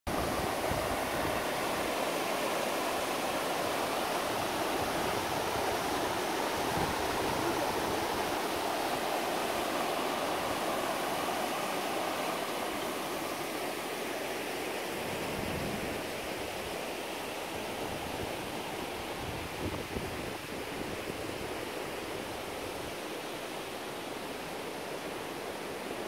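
Clear mountain stream running over a shallow, rocky bed: a steady rush of water. It drops a little in loudness about two-thirds of the way through.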